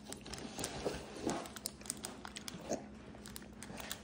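A child chewing gummy candy close up: wet, clicking chewing and lip sounds, broken by a few short hums, the strongest about a second in. A plastic candy wrapper crinkles lightly near the end.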